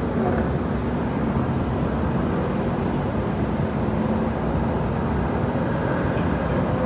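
Steady outdoor background noise: a low rumble with a faint steady hum over it.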